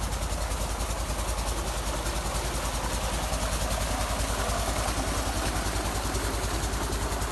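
A tubewell's pump engine running steadily with a quick, even low thudding, over the rush of water pouring from the outlet pipe into the tank.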